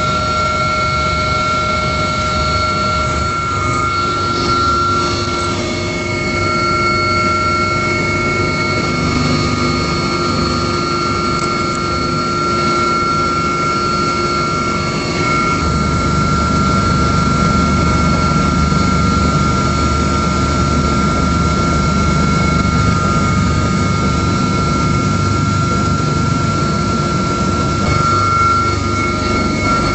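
Helicopter cabin noise: a steady turbine whine over a low engine and rotor rumble, the rumble growing heavier about halfway through.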